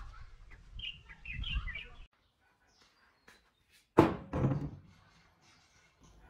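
Rusty metal hurricane lamp set down on a wooden table with one sharp clunk about four seconds in. Before that, bird chirps over a low rumble, cut off abruptly about two seconds in.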